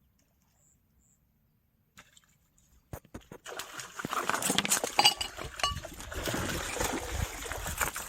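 Near silence for about three seconds, then water splashing and sloshing with scattered clicks and knocks, loud and irregular.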